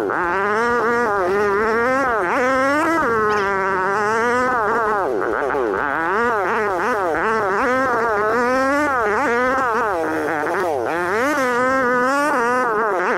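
Dirt bike engine revving hard and easing off again and again as it is ridden over jumps and bumps, a buzzing whine that rises and falls in pitch every half second or so.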